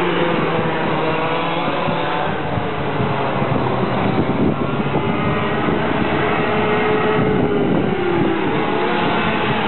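Several go-kart engines running together on a track, their pitches rising and falling and overlapping as the karts speed up, lift off and pass.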